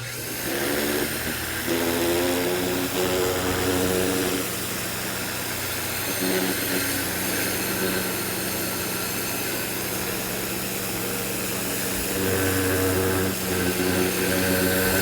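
Ryobi 1600 PSI electric pressure washer kicking on suddenly and running: a steady electric motor-and-pump hum under the hiss of the water jet.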